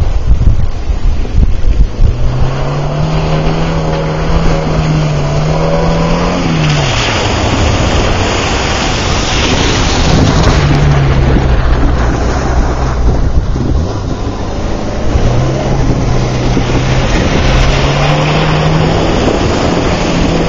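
1990 Geo Tracker's four-cylinder engine revving as it is driven through mud and water, the pitch climbing and dropping several times as the driver gets on and off the throttle. Heavy wind rumble on the microphone, with stretches of hiss from tyres and spray.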